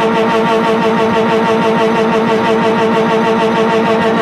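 Honda D16Y7 1.6-litre four-cylinder engine, running without an air filter, held against the rev limiter in second gear, heard from inside the cabin. The note stutters rapidly several times a second as the limiter cuts and restores power.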